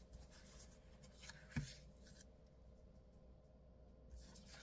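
Near silence with faint handling of paper planner pages: a soft rustle and tap about one and a half seconds in, and a light paper rustle near the end as a page is pulled off the planner's binder discs.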